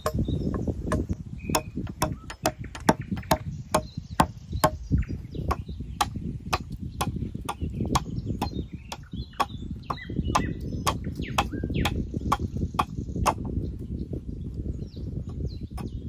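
A tool striking wood in quick repeated blows, about two a second, over a low rustling, with birds chirping faintly.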